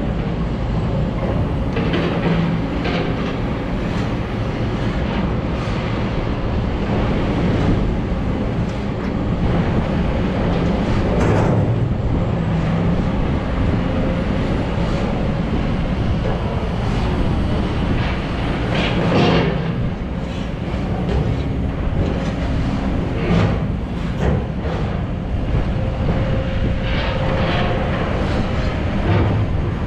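Heavy diesel machinery running steadily, with several louder scrapes and knocks spread through it, as an excavator digs wet clay out of a ship's steel cargo hold.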